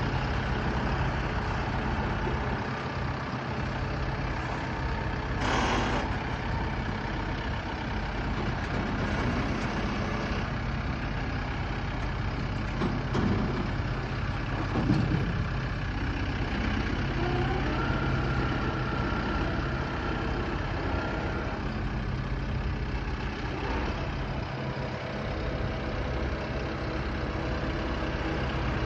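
A heavy vehicle engine running steadily at idle, with a short burst of noise about five seconds in.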